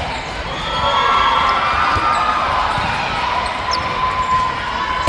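Indoor volleyball play in a gym: thumps of the ball over sustained calls and shouts from players and spectators.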